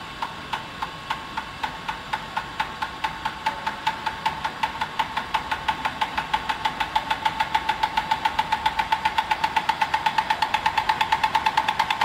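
RFID dry-inlay lamination machine running, making a rhythmic mechanical clicking with a ringing note on each stroke. The strokes speed up from about three to about six or seven a second.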